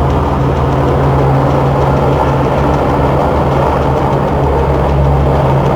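Loud, steady low engine drone with no change in pitch.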